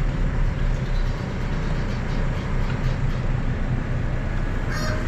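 A steady low rumble. Near the end, a rooster begins to crow.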